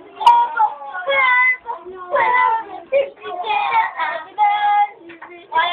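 Children singing in short held phrases with brief breaks between them.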